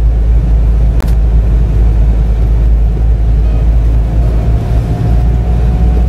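Car driving along a road: a steady low engine and road rumble, with a single sharp click about a second in.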